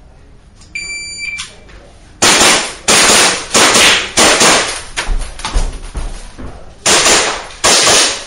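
Electronic shot-timer start beep, then pistol shots: four fired in a quick string about two-thirds of a second apart, a pause of two to three seconds, then two more. Each shot rings on briefly.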